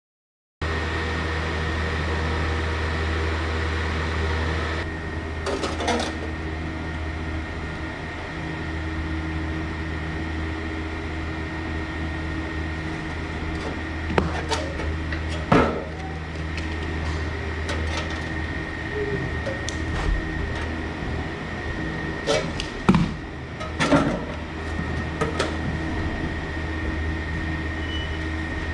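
A steady machine hum with a thin high whine, joined by scattered knocks and clicks of work being handled, a few of them sharper.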